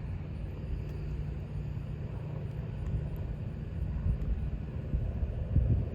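Steady low outdoor rumble, like wind on the microphone or distant traffic, with a few faint clicks.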